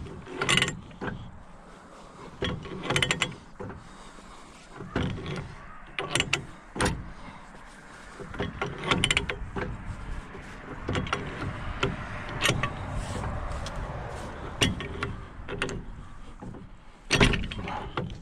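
Pipe wrench working the gland of a hydraulic excavator lift cylinder: irregular metal clicks and clanks as the wrench jaws grip, slip and are reset, with a louder clank near the end.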